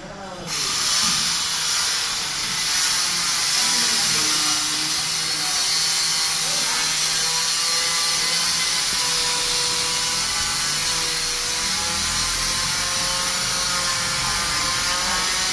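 A power tool running steadily while a metal ceiling hook plate is fixed: a continuous even hiss with a faint wavering whine.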